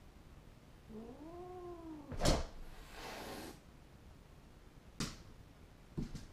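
Dog whining once, a call about a second long that rises and then falls in pitch, typical of separation distress when left alone. A sharp thump close by follows, then a brief hissing huff, and two lighter knocks near the end.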